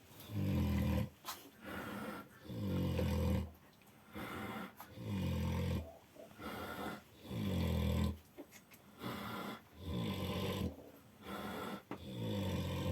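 Farrowing sow snoring heavily in her sleep between contractions: a deep, loud snore about every two and a half seconds, each followed by a quieter breath.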